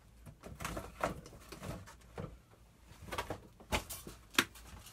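Scattered light knocks and clicks of kitchen items being handled and moved about in a small room, with two sharper clicks near the end.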